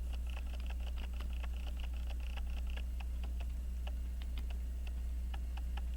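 Small, irregular metallic clicks of a watchmaker's screwdriver tightening screws in an Elgin pocket watch movement, coming thickly at first and more sparsely later.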